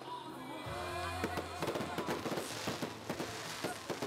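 Aerial fireworks bursting in quick succession: a rapid, irregular string of bangs and crackles.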